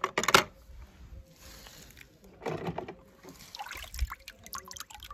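Water splashing and sloshing in a plastic tub as die-cast toy cars are dropped in and lifted out. The loudest splash comes right at the start, another comes about two and a half seconds in, and smaller splashes follow.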